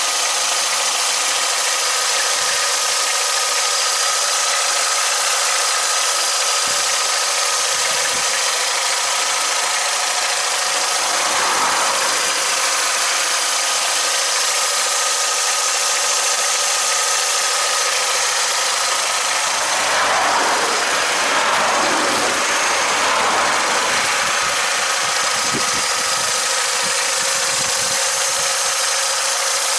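Opel Astra G's Ecotec Z14XEP 1.4-litre twinport four-cylinder petrol engine running steadily at idle, heard close up in the open engine bay. It makes an even hiss with several steady high whining tones, swelling slightly about two-thirds of the way through.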